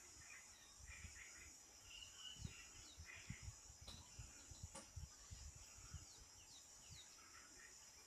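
Faint grassland ambience: a steady high insect drone with scattered bird chirps and short falling whistles. A few low thuds come and go through the middle, with two sharp clicks close together.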